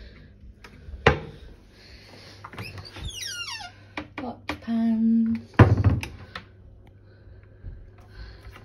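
Kitchen cupboard doors being opened and shut: a sharp click about a second in and a louder thump about halfway through.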